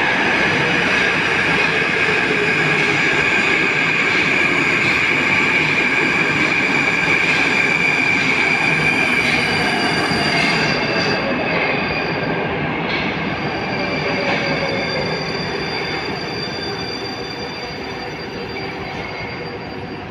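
Moskva-2020 metro train pulling into a station. Its loud rolling noise carries a high whine that falls in pitch as it brakes, and the sound eases off over the last several seconds as it slows to a stop.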